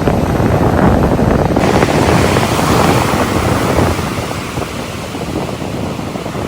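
Ocean surf breaking on the shore, with wind buffeting the microphone. The noise eases a little about four seconds in.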